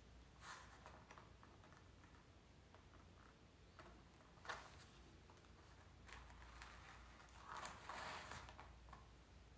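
Near silence, with faint sounds of chalk being drawn along a clear plastic ruler on canvas: a light tap about halfway through and a soft rubbing stroke later on.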